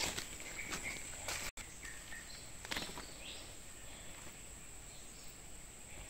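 Steady high-pitched insect drone in forest undergrowth, with a few short bird chirps and scattered rustles of footsteps in dry leaf litter, the loudest about three seconds in.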